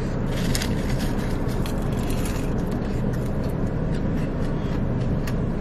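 Steady hum and rush of a parked car's cabin, with a few short crisp crunches from chewing fried birria queso tacos.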